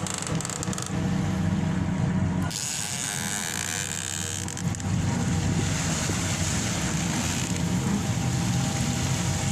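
Fishing boat's engine running steadily, with wind buffeting the microphone; a louder rushing hiss sets in about two and a half seconds in.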